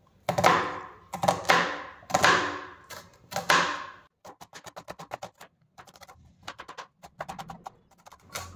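Kitchen knife slicing a small red onion on a cutting board: about five slow, firm cuts through the bulb, then from about four seconds in a quick run of light taps as the blade chops thin slices against the board.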